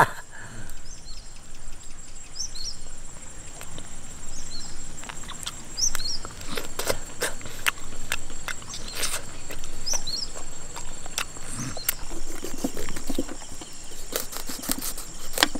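Rural outdoor ambience: a steady high insect drone and repeated short bird chirps, with scattered sharp clicks and knocks throughout.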